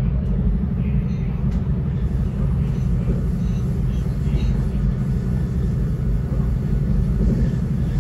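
Steady low rumble of a passenger train running along, heard from inside the carriage.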